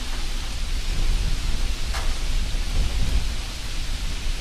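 Steady rushing hiss over a low rumble, with a light tap about two seconds in.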